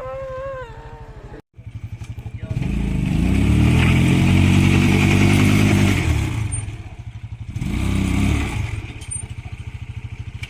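Motorcycle engine running at a steady thudding idle, revved hard for about three seconds, then revved again briefly about eight seconds in. The sound drops out for a moment about a second and a half in.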